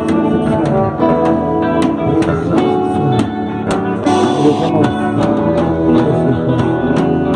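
Rock band rehearsing: guitar playing over a drum kit keeping a steady beat.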